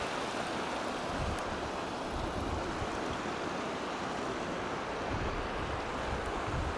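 Creek water rushing steadily over rocks in a small cascade, with some low wind rumble on the microphone.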